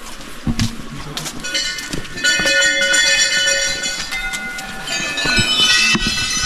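Small brass temple bells ringing, several overlapping with long ringing tones, in two spells: from about one and a half seconds in, and again from about five seconds in.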